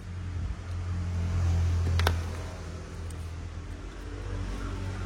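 Low rumble of a passing motor vehicle, growing louder and then fading, with one sharp click about two seconds in.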